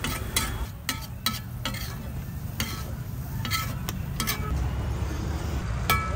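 A metal spatula scraping and clinking on a large flat griddle (tawa) as an egg mixture is stirred and fried, over a steady sizzle. The sharp clinks come about every half second in the first two seconds, then more sparsely.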